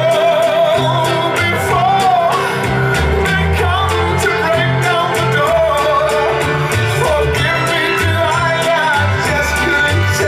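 Recorded song with a singing voice, guitar and a steady bass beat, played back through the hi-fi system and picked up by a camcorder microphone.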